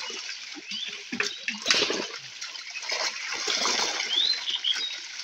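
Pond water splashing and sloshing irregularly as a fishing net is hauled through it, with a few sharp splashes about a second in. A few short, high rising chirps come near the end.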